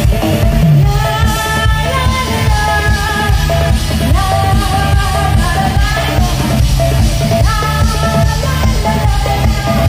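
Live band music amplified through stage loudspeakers: a woman singing a melody in long held, sliding phrases over a steady bass-heavy beat with drums and keyboard.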